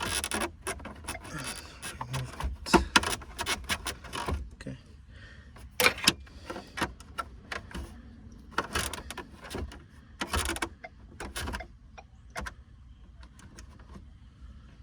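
Irregular clicks and knocks of a car's center dash trim being handled and pried as it is worked loose.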